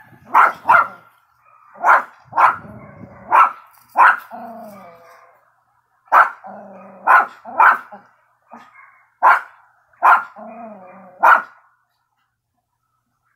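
Small dog barking repeatedly: about a dozen sharp barks in two runs, with a short pause in the middle.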